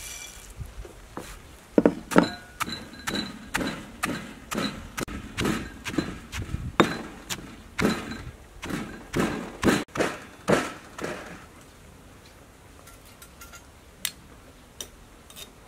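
Heavy stone pestle pounding nuts into spice paste in a stone mortar, sharp thuds about two a second. The pounding starts a couple of seconds in and stops after about nine seconds, leaving a few faint clicks.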